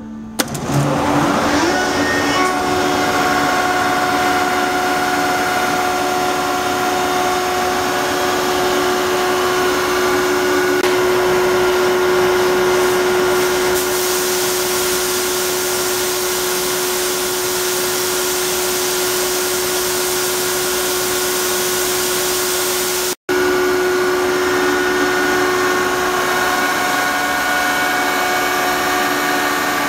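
CompAir Kellogg Cyclone 6000 30 HP rotary screw air compressor starting up. Its 3-phase electric motor spins up with a quick rising whine about half a second in, then settles into a steady, loud running hum with a constant tone over a hiss of air. The hiss grows brighter for a stretch around the middle.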